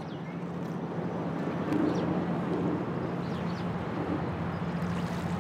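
A steady low engine drone under outdoor ambient noise, growing slightly louder over the first two seconds, with a few faint high chirps.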